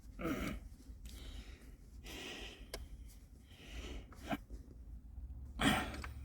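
A person breathing hard and sniffing in short noisy puffs, with a couple of sharp clicks from tools or parts being handled.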